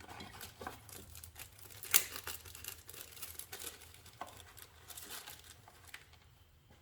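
Plastic zip ties being fastened around headlight bulb wiring, with the wires handled: irregular small clicks and rustling, and one sharp click about two seconds in.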